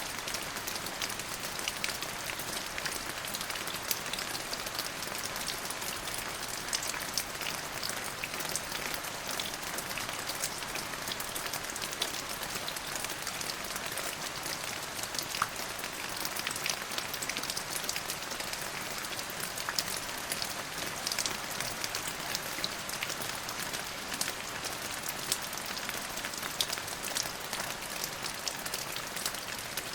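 Steady rain falling on a hard surface, a dense even hiss with countless individual drop ticks, unchanging throughout.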